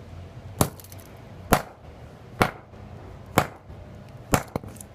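A 4-pound sledgehammer striking a flip phone five times, about once a second, with a lighter knock just after the last blow.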